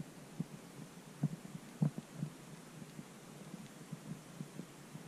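Footsteps of a hiker walking a rocky trail: low, dull thumps, about two a second and uneven in strength.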